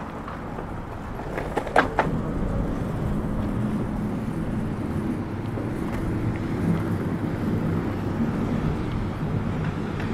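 Outdoor city ambience: a steady low rumble of traffic, with two sharp clacks about two seconds in.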